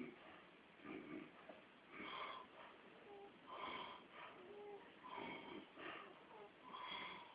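A man snoring in his sleep: quiet, wheezy breaths about every one and a half seconds, some carrying a faint whistle.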